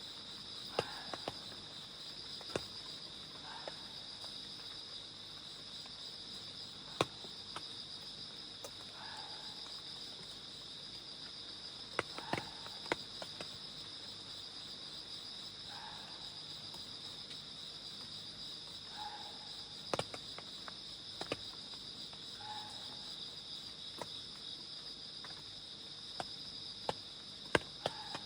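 Crickets and other night insects trill in a steady high chorus, with scattered sharp ticks of rain drops. A short, low call repeats every three to four seconds: an unidentified creature.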